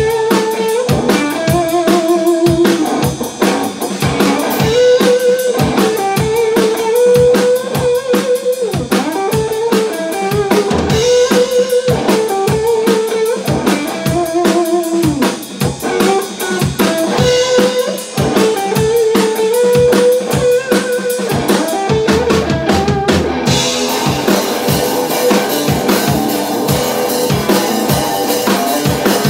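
Live instrumental blues: an electric guitar plays a lead melody of bent and vibratoed held notes, repeating its phrase, over a drum kit beat with bass drum and hi-hat. Near the end the drums move from tight hi-hat ticks to a steady cymbal wash.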